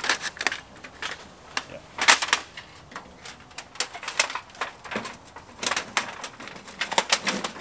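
Thin sheet-metal chimney pipe of a small tent wood stove clattering as it is handled and fitted onto the stove's chimney collar: irregular metallic clicks, knocks and rattles.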